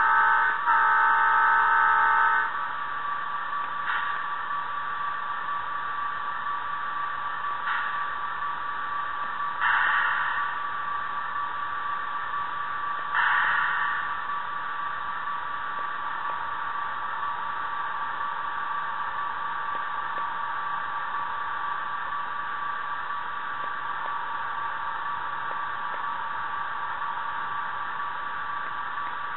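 Sound decoder of an HO scale Athearn Genesis FP45 model diesel locomotive: a horn blast of about two seconds at the start, then the recorded EMD 645 prime mover running steadily, with a few short bursts of hiss in the first half.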